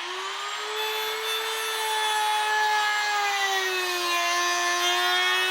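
Small power grinder whining steadily as it grinds down the tips of a steel tool, its pitch sagging a little under load about midway and recovering.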